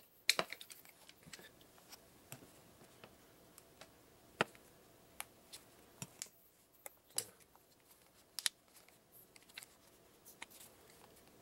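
Faint handling noise and scattered small plastic clicks as a foam replacement ear pad is pressed onto a 3M WorkTunes ear-muff cup. The sharpest click, about four and a half seconds in, is the pad snapping into place on the cup.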